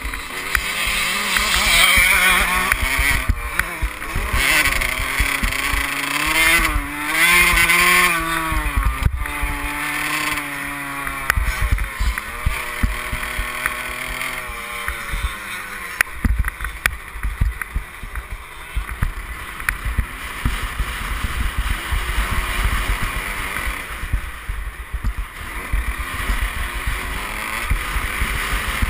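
Motocross bike engine heard from a helmet camera, revving up and down as the bike is ridden hard, with wind buffeting the microphone. The revs climb and drop several times through the first half; after that the engine note is rougher and mixed with low rumble and wind noise.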